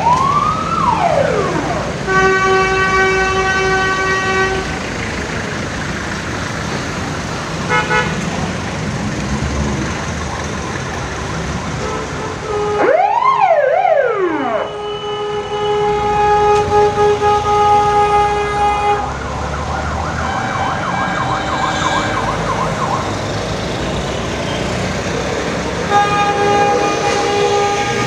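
Sirens and horns of vintage vehicles passing slowly. A siren sweeps up and down near the start and again about halfway through. Steady horn blasts sound several times, lasting a few seconds each, over engine and road noise.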